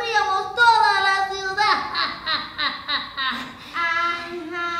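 A puppeteer's high, child-like character voice singing, with held notes and a run of quick repeated syllables in the middle.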